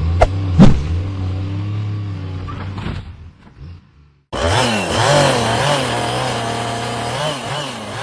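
Chainsaw engine running steadily, with two sharp clicks in the first second. After a brief near-silent break the saw comes back loud and revs, its pitch rising and falling.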